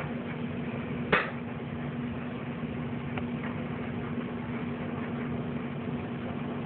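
Steady low mechanical hum, like a fan or appliance, with one sharp click about a second in and a fainter tick a couple of seconds later.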